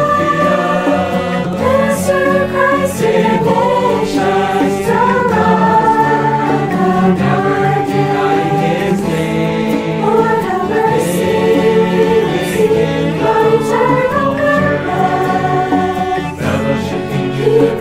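Background music: a choir singing a Christian hymn over steady instrumental accompaniment.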